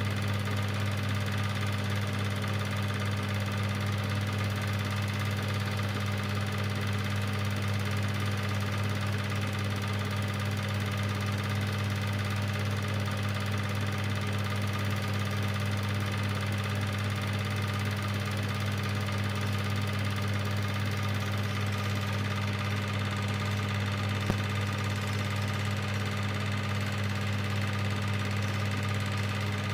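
Cine film projector running: a steady motor hum with the light mechanical clatter of the film transport, and one brief click about three-quarters of the way through.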